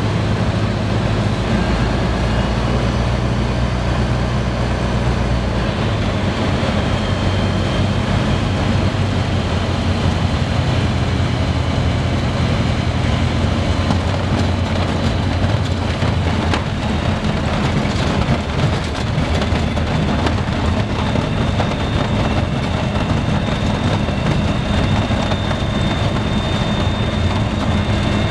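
Rotax 912ULS flat-four engine of a Merlin ultralight running throttled back through a landing, heard from the cockpit with wind noise. A rough rumble joins in as the wheels roll out on a grass airstrip, and the engine note settles to a steady idle while taxiing near the end.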